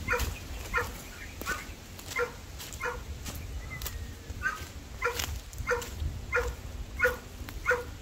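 A dog barking over and over in a steady rhythm, about one bark every two-thirds of a second, with a short pause about halfway through.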